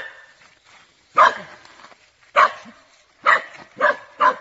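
A dog barking: five short, sharp barks, the last three coming quicker together near the end.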